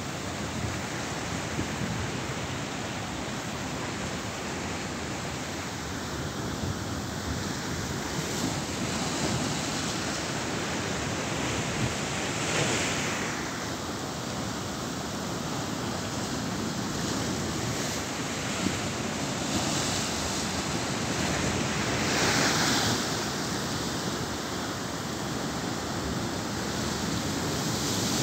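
Storm-driven sea surf breaking and washing over a concrete and rock shore ledge, a steady rushing wash that swells louder a few times as bigger waves come in.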